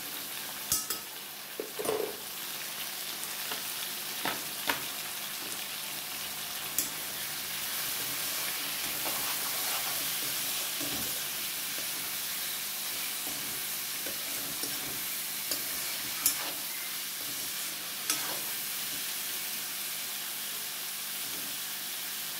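Chicken pieces and onions frying in hot oil in a metal kadai: a steady sizzle, with a utensil stirring the meat and clinking against the pan now and then.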